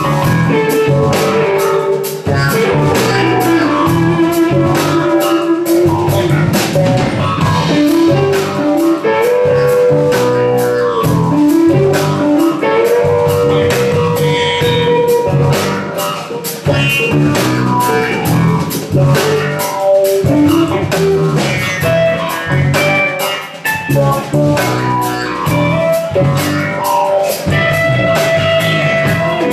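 Rock band playing live without vocals: a guitar plays a lead line with long held notes that bend in pitch, over a steady drum kit beat.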